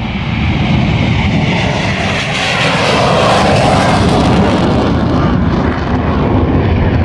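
RCAF CF-18 Hornet's twin jet engines making a loud pass, growing louder early on. The pitch falls about two to four seconds in as the jet goes by.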